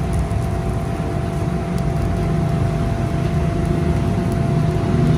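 A workshop power tool's electric motor running steadily, a constant hum with a faint steady whine.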